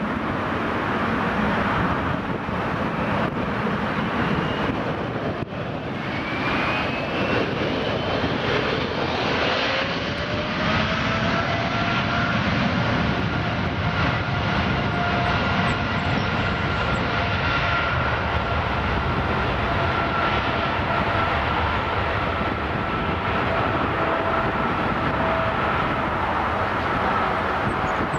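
Air Canada Boeing 777-300's twin GE90 turbofan engines spooling up for takeoff. A whine rises over the jet roar for a few seconds, then holds at a steady high tone as the airliner accelerates down the runway.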